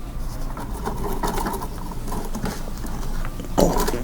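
Small cleaning brush scrubbing coffee grounds out of a coffee grinder's burr area, a soft, irregular rustling scrape, busier near the end.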